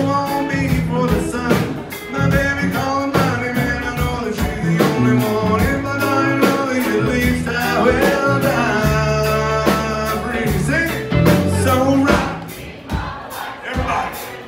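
Live country band playing amplified: electric and acoustic guitars, fiddle, bass and drums over a steady drum beat, with some singing. The band drops back quieter about twelve seconds in.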